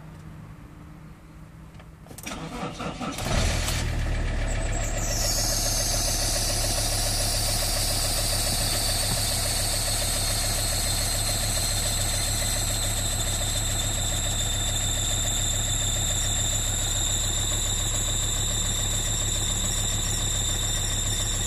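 A vehicle engine cranking for about a second, catching, then idling steadily. A high whine falls in pitch and settles a couple of seconds after it catches.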